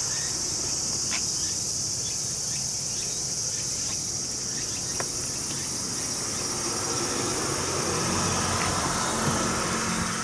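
Steady high-pitched chorus of insects, with a few faint clicks over it.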